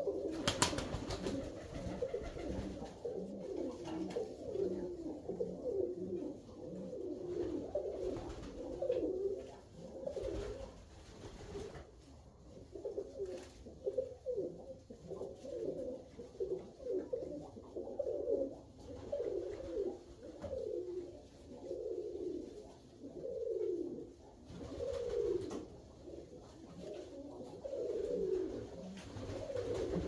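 Alföldi-Körösi tumbler pigeons cooing, one low falling phrase after another, overlapping and running on without a break. A brief sharp knock comes about half a second in.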